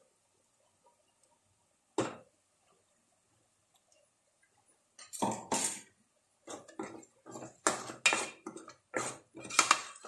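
Kitchen utensils on a cooking pan: a single sharp knock about two seconds in, then from about five seconds in an irregular run of scraping and knocking as ground masala paste is worked into fried onions with a spatula.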